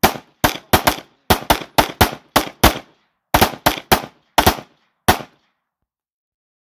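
Semi-automatic pistols fired rapidly by two shooters at once: about fifteen sharp shots in two quick strings, the last about five seconds in.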